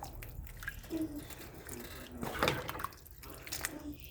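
Pot of cabbage in broth simmering, with small bubbling blips and drips of liquid, and a brief louder watery rush about two and a half seconds in.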